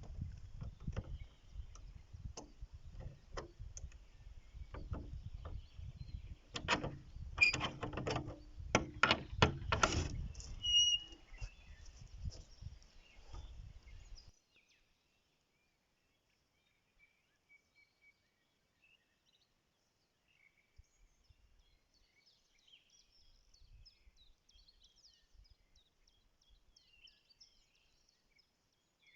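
Small birds chirping. For about the first half, a low rumble and a run of sharp clicks and knocks lie under the chirps, then cut off abruptly, leaving only faint scattered chirps.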